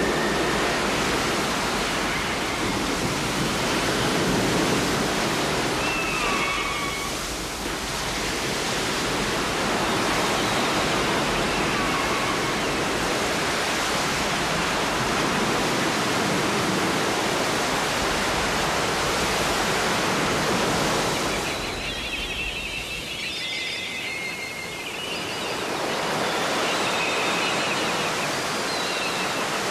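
Steady rushing noise, like running water or hiss, with a few faint, short, high chirps, most of them near the end.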